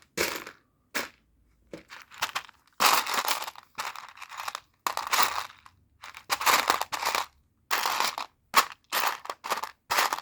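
Loose plastic Lego Technic pieces rattling and clattering in irregular bursts as a hand sifts through them, searching for a part.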